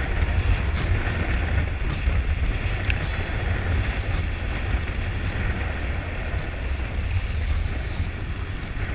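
Steady wind buffeting the microphone over the rush of water along the hulls of a Weta trimaran under sail.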